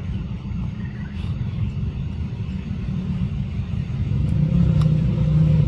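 A steady low motor rumble, with a humming tone setting in and growing louder about four seconds in.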